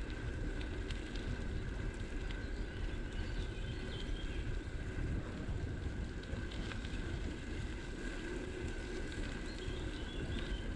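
Wind buffeting the microphone and bicycle tyres rumbling on a path during a steady ride, with a thin steady whine throughout and a few faint bird chirps.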